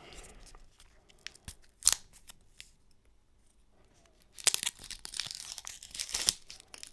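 A snack bar's wrapper being torn open and crinkled. There are scattered small clicks and a sharp snap about two seconds in, then about two seconds of tearing and crinkling near the end.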